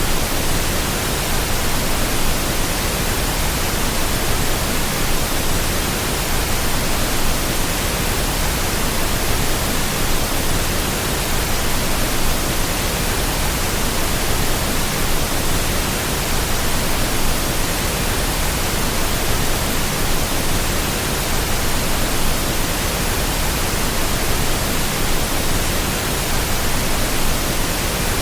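Flowing water giving a steady, unbroken rushing hiss, even across low and high pitches, with no birdsong or other sounds standing out.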